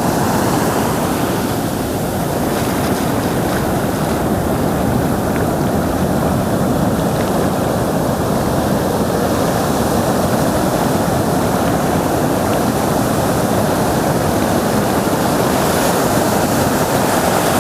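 Steady rush of ocean surf, with wind noise on the microphone.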